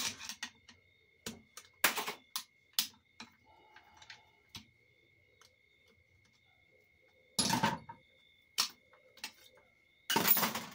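Metal clicks and clatter of a 4L60E transmission's 3-4 clutch pack being taken apart by hand, its steel plates and pressure plate knocking together: scattered sharp clicks, then two longer rattles near the end. A faint steady high tone runs underneath.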